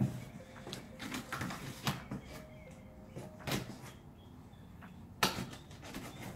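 Utility knife cutting through the packing tape and cardboard of a shipping box, heard as a series of irregular scrapes and rasps with handling of the box, the sharpest about five seconds in.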